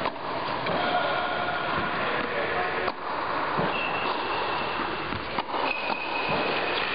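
Tennis racket striking a ball in a practice rally: three sharp hits, roughly two and a half seconds apart, over a steady, loud rushing noise.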